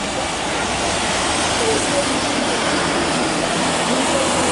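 Jet engines of a Boeing 737 airliner running as it rolls slowly on the ground: a steady broad rumble and hiss, building a little.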